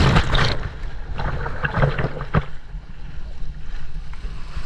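An ocean wave breaking over a camera held in the surf: a loud rush of churning water at first, then a run of sharp splashes and crackles over the next second and a half, settling into a steady wash of surf.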